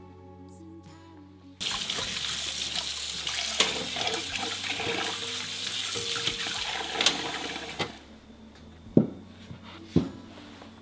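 Kitchen tap running hard into a stainless steel sink while a wood-handled silicone spatula is rinsed under the stream. It starts about a second and a half in and stops about eight seconds in. Then two sharp knocks as dishes are set down on a table.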